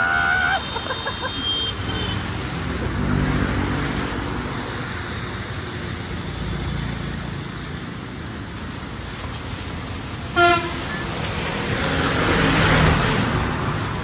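Road traffic with motorcycle engines running, a short vehicle horn honk about ten and a half seconds in, and the rush of a passing vehicle swelling and fading near the end.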